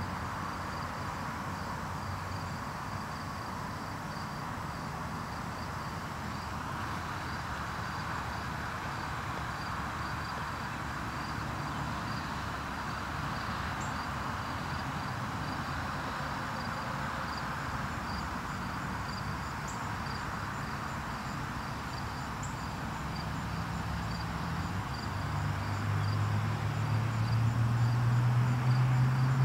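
Outdoor ambience: insects chirping in an even, repeating rhythm over a steady background hiss. A low droning hum swells and gets louder over the last few seconds.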